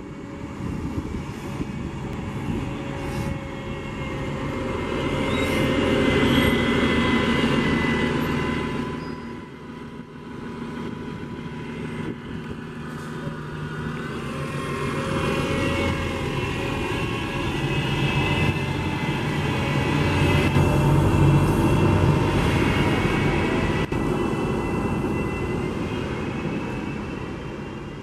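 2009 New Flyer DE41LF diesel-electric hybrid bus (Cummins ISL diesel with Allison EP-40 hybrid drive) running under power with an odd whine over the engine drone. The whine shifts in pitch as the sound builds, fades about ten seconds in, then builds again to a second peak before easing off.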